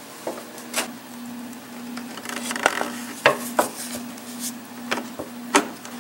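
Steel pry bar levering the plastic engine cover of an MK5 VW Jetta up off its rubber grommets. Scraping and rubbing with a series of sharp clicks and knocks, the sharpest a little past halfway and near the end. A steady low hum runs underneath.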